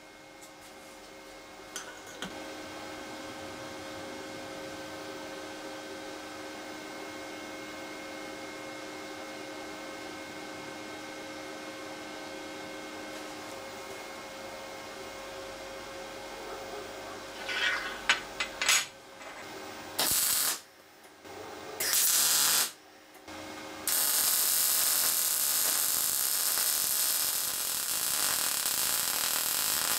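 VEVOR MIG-200D3 welder humming steadily at idle, then its welding arc struck in two short bursts, followed by a steady hissing arc of about seven seconds near the end as a bead is laid on steel.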